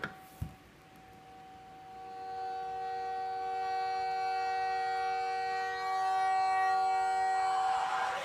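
Montreal Canadiens goal horn, a recording played from a tablet scoreboard app after a goal: one long steady chord of several tones that swells about two seconds in and then holds. Two light clicks at the start.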